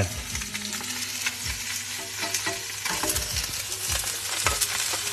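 Mulloway fillet frying in oil in a frying pan: a steady sizzle with scattered small crackles and pops.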